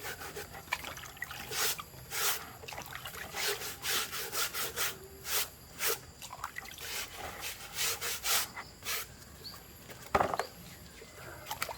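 Irregular scraping or rubbing strokes on a hard surface, several a second, with one sharper knock about ten seconds in.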